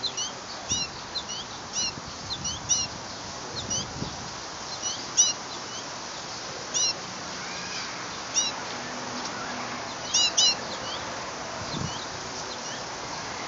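American goldfinch calling: short, high, sweet chirps in quick runs, densest over the first four seconds, then in scattered groups of two or three.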